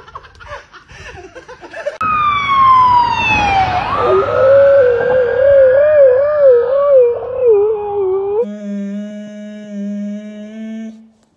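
An emergency-vehicle siren passing on the road: its wail glides down sharply, then rises and falls slowly, while a husky howls along in a long wavering howl. Near the end a different, steady drawn-out whine takes over, of the kind a dog makes while begging for food.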